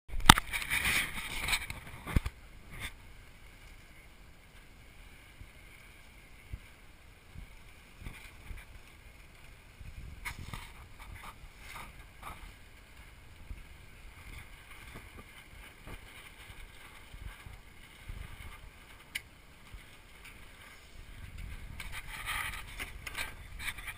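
Knocks and rubbing as an action camera is handled and fitted in place, ending with a sharp knock about two seconds in, then a faint outdoor background with scattered light knocks and rattles.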